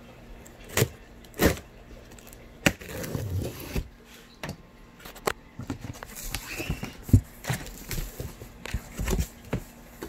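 Cardboard shipping box being opened by hand: flaps scraping and knocking, with cardboard and plastic wrap rustling. The sounds come as irregular knocks and scrapes, the loudest about two-thirds of the way through.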